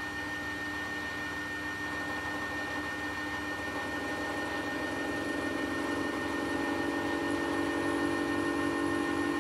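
Small benchtop metal lathe running, its chuck spinning a metal bar held against a live centre, with a steady whine and hum. About halfway through it grows a little louder and a higher tone joins in as the tool is worked along the piece.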